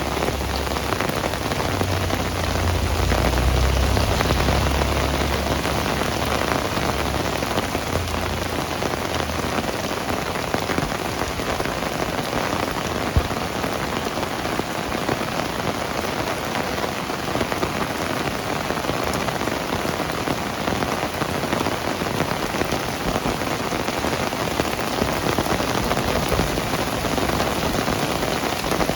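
Heavy rain falling steadily and hissing on surfaces, with many close drop patters. A low rumble sits under it for the first several seconds, then fades.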